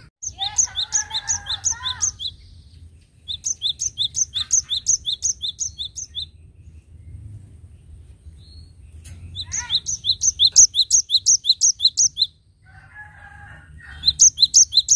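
Cinereous tit (gelatik batu) singing: runs of rapid, high, repeated notes, about five a second, in four bursts with pauses between.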